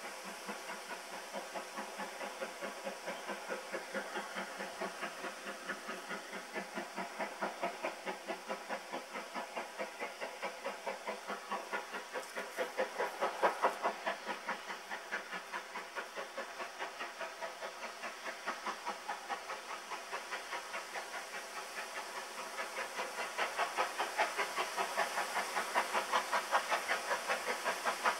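GWR 5101-class 2-6-2 tank locomotive No 5199 approaching under steam, its exhaust beating in a steady, even rhythm. The beats grow louder as it draws nearer.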